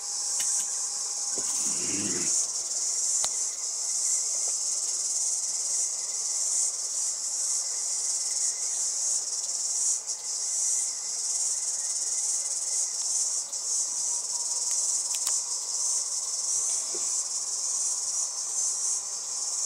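Steady, high-pitched hiss of shortwave receiver noise carrying a weak slow-scan television signal, with a faint steady tone beneath it.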